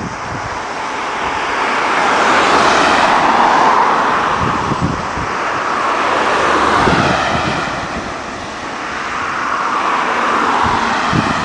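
Road and wind noise from a moving car, a steady rush of tyres and air that swells and fades about three times.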